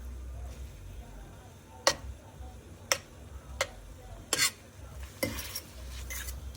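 A metal fork clinking against a pan while pushing fettuccine around in a cream sauce, six or so sharp separate clinks spread over a few seconds.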